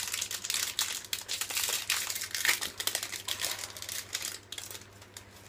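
Foil booster-pack wrapper of a Pokémon trading card pack being torn open and crinkled by hand: a dense run of crackling that thins out about four and a half seconds in.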